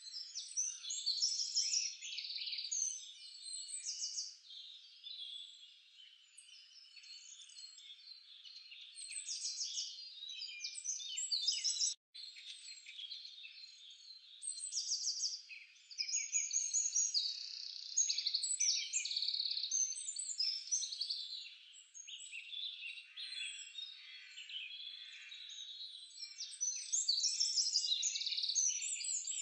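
A chorus of birds singing and chirping, dense with quick trills and short sweeping calls that rise and fall in loudness. It breaks off for an instant about twelve seconds in.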